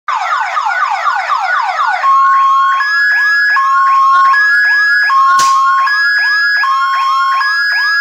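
Electronic alarm sirens with horn speakers sounding loudly: a fast, repeating rising whoop, joined about two seconds in by a steady two-tone hi-lo wail. A single thump about five and a half seconds in.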